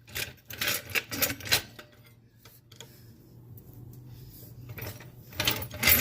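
A quick run of light clicks and clatters, like small tools or metal parts being handled, then a lull and another cluster of clicks near the end, over a faint steady low hum.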